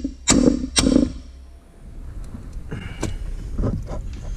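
Hammer blows on a 7/16 socket pressed into the grease-packed spigot bearing in the crankshaft end, two sharp strikes about half a second apart within the first second, then a fainter knock about three seconds in. The blows drive the grease behind the bearing, forcing the bearing out of its bore.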